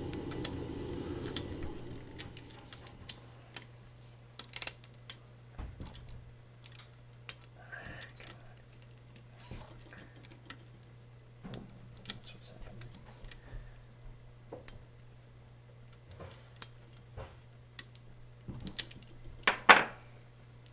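Small socket ratchet and screws on a Delco alternator's rear housing: scattered light metallic clicks and taps, with a louder clatter of several knocks near the end. A faint steady hum runs underneath.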